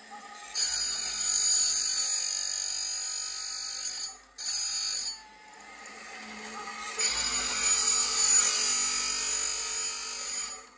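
Markusson Sensomatic automatic chain sharpener grinding a Husqvarna 550 XP Mark II saw chain. The abrasive wheel makes a shrill, high-pitched grinding on each steel cutter tooth, in stretches with short pauses between as the machine moves to the next tooth. There is a long pass near the start, a brief one around the middle, and another that builds and is loudest near the end.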